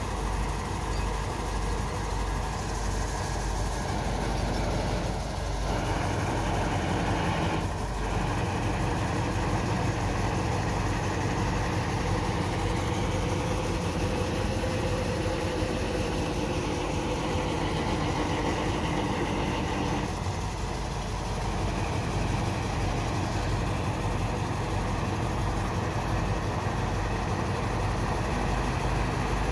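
Heavy diesel engine running steadily, with slight shifts in tone now and then.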